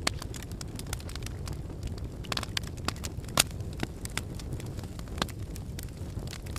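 Wood fire crackling in a fireplace: a steady low rumble of burning with frequent sharp snaps and pops, one louder pop about halfway through.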